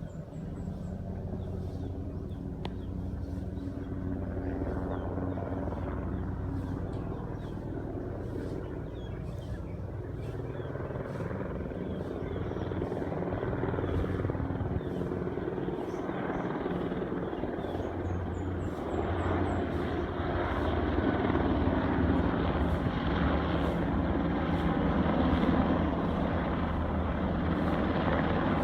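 Two UH-60M Black Hawk helicopters passing low, their rotors and engines a steady deep hum that grows steadily louder as they approach.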